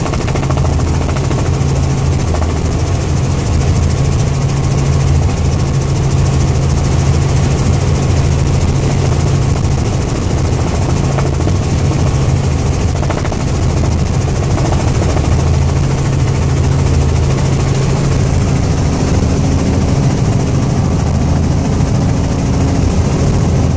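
Helicopter in flight heard from inside the cabin: the loud, steady drone of the engine and rotor, with a strong low hum.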